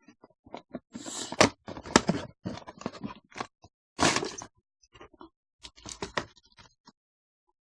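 Toy packaging being handled and opened by hand: irregular crackles, scrapes and tearing of plastic and cardboard, with the loudest rustles about a second and a half in and again around four seconds in.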